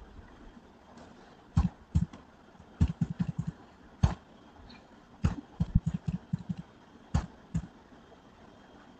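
Computer keyboard keys being pressed: sharp taps, some single and two quick runs of five or six, paging terminal output past its More prompts.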